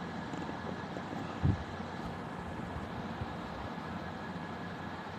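Steady low background noise, with one brief low thump about one and a half seconds in.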